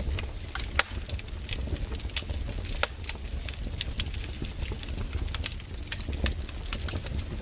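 Log fire in a fireplace crackling, with sharp irregular pops of burning wood several times a second over a low steady rumble.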